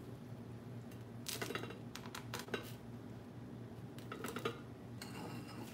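Light clinks and taps in three short clusters as toothpicked artichoke hearts are worked onto a plastic-wrapped styrofoam cone on a cake plate.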